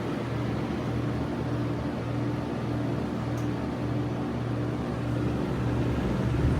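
Side-discharge heat pump outdoor unit running in heat mode: a steady low compressor hum under the even rush of the condenser fan.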